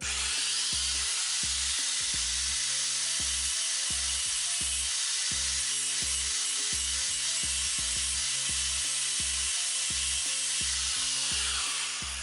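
Angle grinder grinding steadily on the steel around a broken stud, cleaning it up so a welded-on nut will take better; near the end it eases off and winds down. A background music beat runs underneath.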